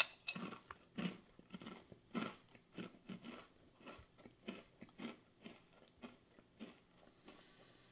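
A person chewing a mouthful of Ruffles Double Crunch Honey Mustard potato chips: a steady run of crisp crunches, about two or three a second.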